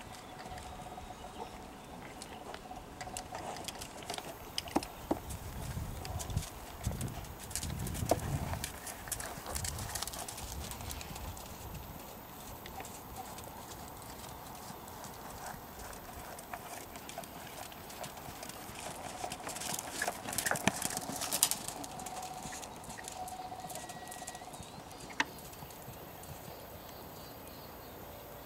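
Hoofbeats of a Belgian Warmblood horse being ridden on sand arena footing: scattered dull thuds and clicks, louder in two stretches, about a quarter of the way in and again past the middle.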